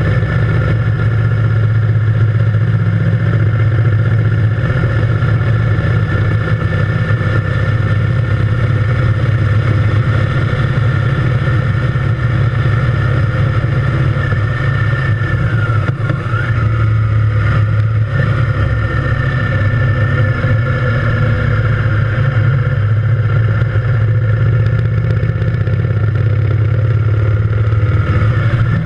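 Triumph Thunderbird Storm's parallel-twin engine running steadily while the motorcycle cruises along a road, heard from a bike-mounted camera. The engine pitch dips briefly about halfway through, then comes back up.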